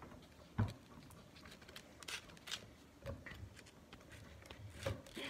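Butter knife scraping and tapping as a spread is scooped from a jar and spread on toast: a few soft scrapes and clicks, with a low knock about half a second in.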